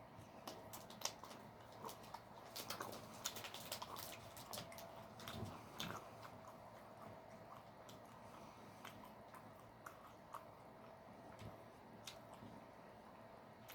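Faint clicks and crackles of a person chewing, thick in the first half and sparser later, over a faint steady hum.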